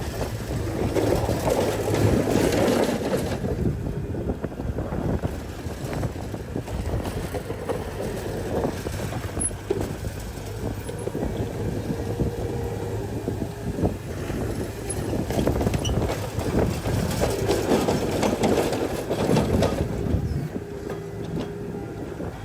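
Diesel engine of earthmoving machinery working under changing load, swelling louder about two seconds in and again near the end.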